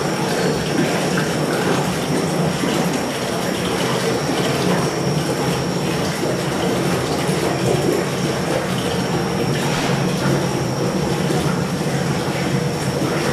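Steady rushing of an aquarium tank's water circulation and pumps, with a thin high whine held on throughout.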